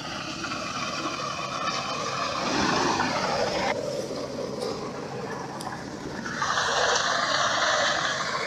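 A motor vehicle engine running steadily, overlaid with rushing, rubbing noise on the microphone that surges about two and a half seconds in and again from about six and a half seconds.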